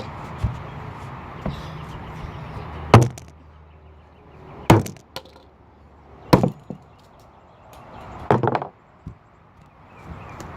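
Hammer blows on a plastic fidget cube: four hard strikes one and a half to two seconds apart, with a few lighter knocks between them.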